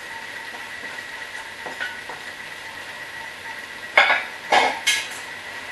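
Chopped chard sautéing in a frying pan with a steady sizzle, and three sharp clatters of kitchenware in quick succession about four seconds in.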